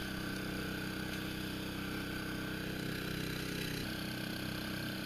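Small engine on an electrofishing boat running steadily at a constant speed, a low, even drone.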